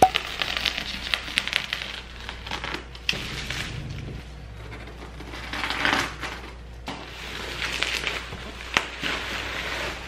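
Plastic bubble wrap crinkling and crackling as it is pulled off a cardboard box, in several bursts with small pops and clicks.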